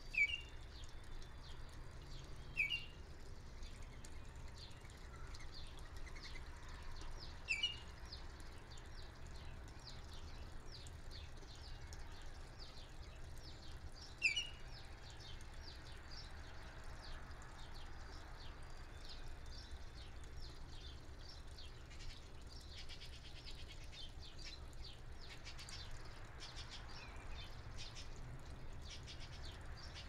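Baltimore oriole giving short whistled notes, four of them in the first half, a few seconds apart. Fainter bird chirps go on throughout, over a low steady rumble.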